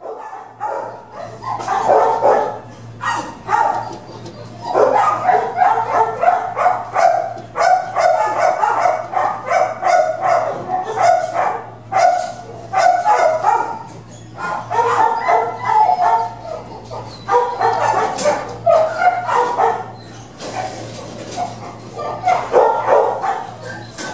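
Shelter dogs barking over and over in a row of steel kennels, with some yips and whimpers mixed in, over a steady low hum.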